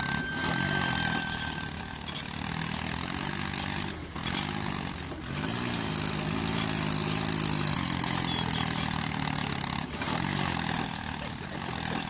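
Tractor engine running with a steady drone, its pitch swelling up and back down three times as if revving.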